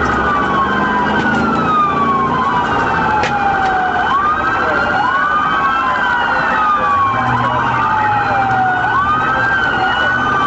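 Several police car sirens wailing at once, their slow rising and falling tones overlapping out of step, over a faster-pulsing siren tone. Engine and road rumble from the pursuing cruiser sits underneath.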